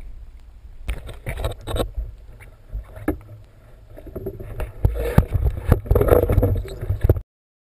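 Underwater water noise and handling knocks from a camera held beneath the surface, heard as a low rumble with irregular thuds and sloshing surges. It grows louder in the second half and cuts off suddenly near the end.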